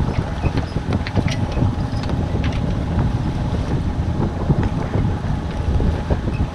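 Wind buffeting the microphone over water rushing and splashing along the bow of a Pacific Seacraft Dana 24 sailboat under way, with a faint steady tone beneath.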